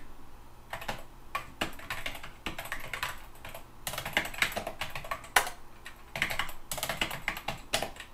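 Typing on a computer keyboard: quick runs of irregular key clicks with short pauses between them.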